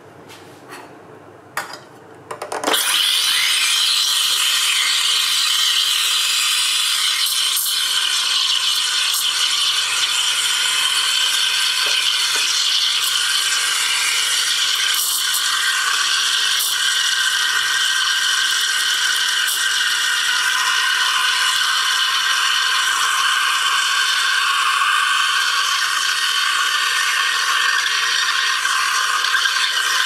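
Steam wand of a De'Longhi ECP-series manual espresso machine frothing milk in a stainless steel pitcher, its tip just below the milk surface to draw in air for microfoam. It starts with a few sputters and, under three seconds in, settles into a loud, steady hiss with faint ticks now and then.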